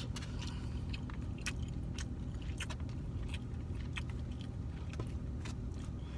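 Close-up eating: chewing and biting, with scattered small clicks and taps, over a steady low hum.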